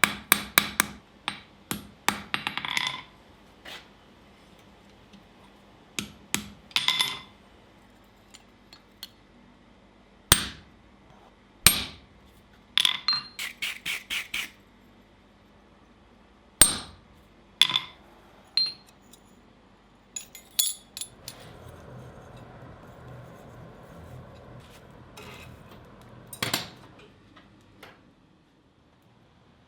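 Hand hammer striking steel on an anvil, with a metallic ring after the blows. It opens with a quick run of strikes at about four a second, then goes on in single blows and short clusters with pauses between. A steady low noise is heard for several seconds near the end.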